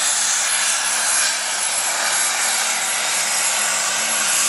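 Heavy super stock pulling tractor's turbocharged diesel engine running flat out under full load as it drags the weight sled, with a steady high whistle over it.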